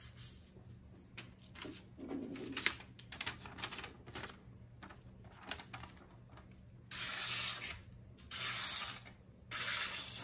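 Cloth and paper rustling, then a freshly sharpened Maxam hunting knife slicing through a sheet of notebook paper in three strokes, each a smooth hiss under a second long, starting about seven seconds in: a paper cut test of the new edge.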